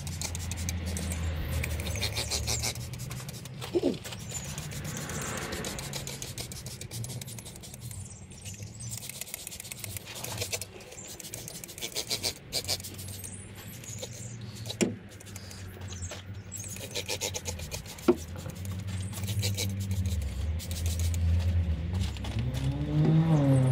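Long-handled brush scrubbing around the engine bay in irregular scraping strokes, with a few sharp clicks, over a steady low rumble.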